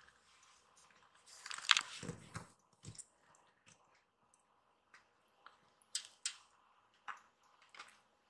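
Kittens stirring in a plush fleece cat bed: a soft rustle of fabric a little after the start, then a few scattered small clicks and smacks.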